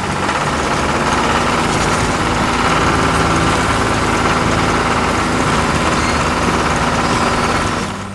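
Tractor engine running steadily, then dropping away just before the end.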